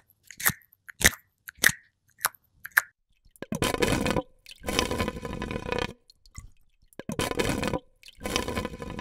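ASMR-style eating sounds: crisp crunches about every half second, like small bites into a firm green apple where a larva is boring in. From about three and a half seconds in, there are four longer scraping, wet-sounding bursts of about a second each, with a faint hum running through them.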